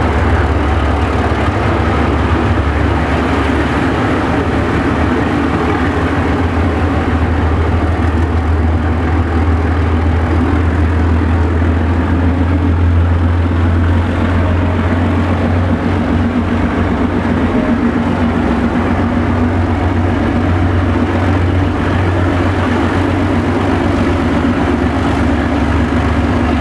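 Narrow-gauge diesel locomotive running steadily close by: a deep, even engine drone with the rumble of the moving train around it.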